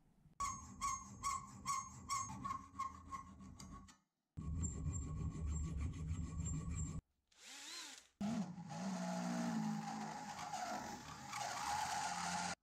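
A hand file rasping along an aluminium bar in even strokes, about two or three a second, with the metal ringing. Near the end a cordless drill bores into the aluminium part: its motor pitch swings up and down briefly, then it runs steadily.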